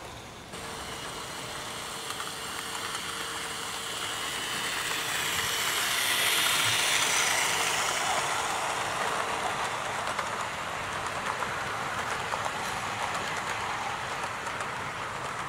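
Hornby 00 gauge model train, the Duchess of Montrose locomotive with a long rake of coaches, running past close by on garden track: a steady whirr and clatter of small wheels on rail. It swells to its loudest about six to seven seconds in, then eases as the coaches roll on.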